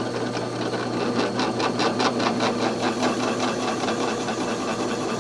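Drill press running and boring slowly through a wooden handle blank with a long 7 mm brad-point bit: a steady motor hum with a fast, even ticking as the bit cuts. The deep hole is making the bit and wood run hot enough to smell.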